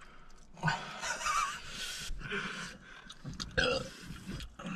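A man blowing and hissing breath out through his open mouth against the burn of very hot chilli wings, a long breathy exhale starting about half a second in, followed by a short vocal grunt.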